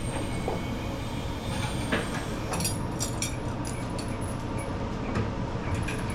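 Steady drone of a shop fan, with scattered short metal clanks and clicks from tools and parts being handled.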